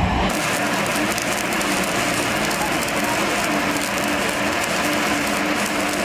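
Stick arc welding with a flux-coated electrode on steel pipe: the arc strikes a fraction of a second in, then crackles and sizzles steadily at an even level as the bead is laid.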